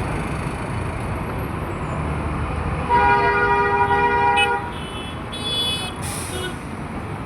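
Road traffic with engines running steadily, and a vehicle horn blaring for about a second and a half about three seconds in. A few shorter, higher-pitched horn toots follow.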